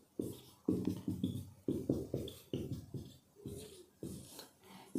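Writing on a board: a string of short taps and strokes, about two or three a second.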